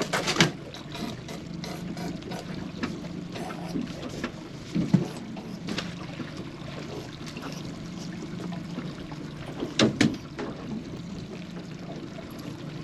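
Water splashing and trickling aboard a small fishing boat, over a steady low hum, with a few sharp knocks: one at the start, one about five seconds in and a double one about ten seconds in.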